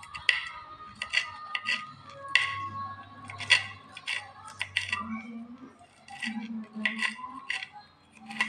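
Kitchen knife cutting garlic, shallots and chillies over a stone mortar: a run of sharp, irregular clicks, about two a second, with a short pause a little past the middle.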